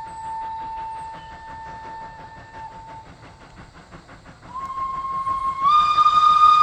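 Steam locomotive whistles. One steady whistle sounds until about halfway through. After a short gap a second, higher whistle starts, then steps up in pitch and gets much louder near the end.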